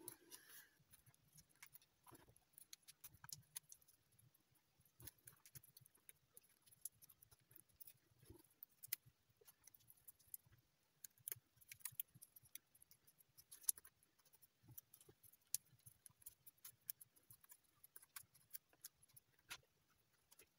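Faint, irregular crinkling and clicking of small foil-backed paper origami units being creased at the corners between fingers.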